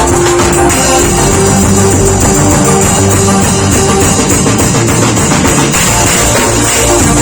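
Drum kit played along with a loud backing track: a full band sound with sustained bass and keyboard or guitar notes over the drum beat.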